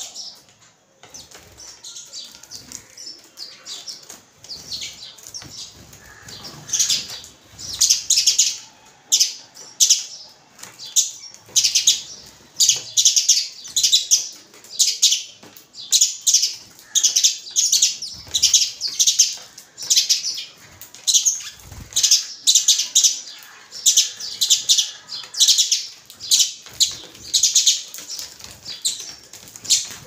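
Babblers and house sparrows calling while feeding: harsh chirps that start faint, then turn loud and repeat about once or twice a second from about seven seconds in.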